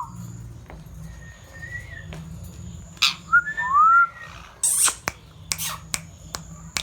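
Pet green ring-necked parakeet whistling and chirping: a faint whistle, then about three seconds in a clear two-part whistle (a short high note followed by a rising-and-falling one), among several short, loud, harsh chirps.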